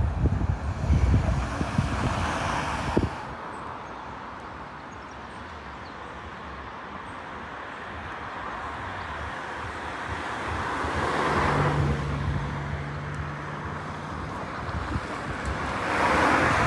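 Cars passing over a level crossing on the road, their tyre and engine noise swelling and fading about ten seconds in and again near the end. Wind buffets the microphone for the first three seconds.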